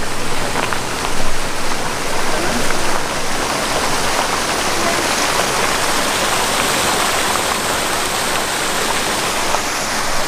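Spring water rushing steadily over a low rock ledge into a creek.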